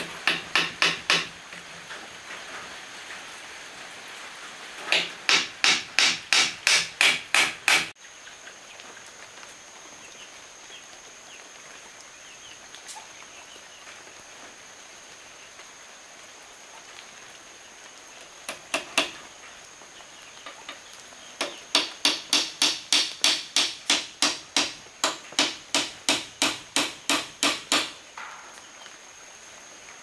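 Hammer nailing the joints of a wooden cupboard frame: runs of quick, even strikes, about three a second, broken by pauses, with the longest run near the end.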